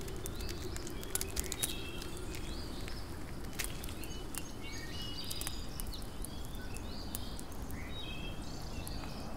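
Forest ambience: small birds chirping repeatedly over a steady low rumble, with scattered sharp clicks.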